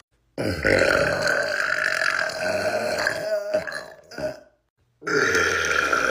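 A man burping: one long drawn-out burp of about three seconds, a short pause, then another long burp beginning near the end.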